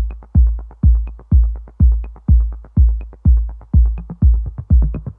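Electronic dance music with a heavy kick drum on every beat, about two beats a second, and light ticks between the beats.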